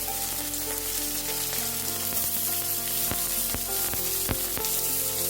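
Chopped carrots and beans sizzling in hot oil in a pan, a steady hiss, with a few sharp clicks of stirring against the pan.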